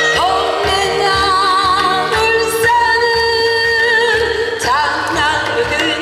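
A woman singing into a microphone over an amplified backing track with a steady beat, holding long notes with a wide vibrato.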